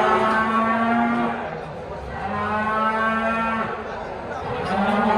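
Cattle mooing: three long, steady moos one after another.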